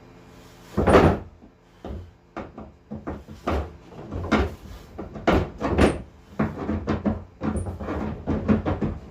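Irregular knocking and clunking of tools and hardware being worked, with one loud thump about a second in, then a busy run of quicker knocks.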